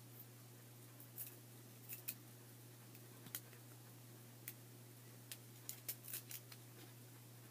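Trading cards being handled and flipped through, about a dozen light, sharp snaps and clicks of card stock, coming closer together between about five and a half and six and a half seconds in, over a faint steady hum.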